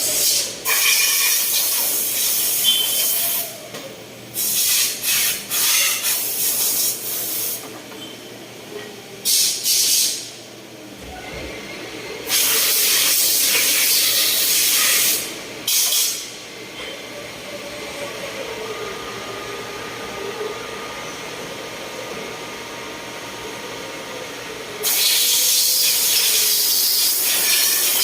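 Machinery in a CNC shop making motorcycle shock absorbers: loud bursts of hissing lasting one to three seconds each, about six times, over a quieter steady machine hum.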